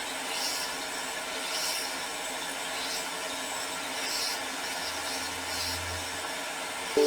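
Hot air rework station blowing 450 °C air at 70% airflow onto a laptop motherboard chip to desolder it: a steady hiss that swells about once a second. A pitched beep-like tone starts right at the very end.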